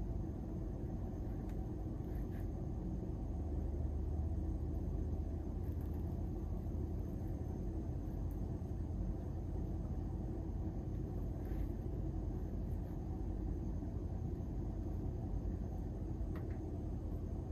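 A steady low rumble of background noise, with a few faint ticks.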